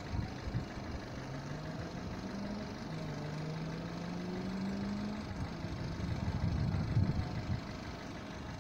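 A road vehicle's engine accelerating out of sight, its pitch rising, dropping at a gear change about three seconds in, then rising again, over a low outdoor rumble.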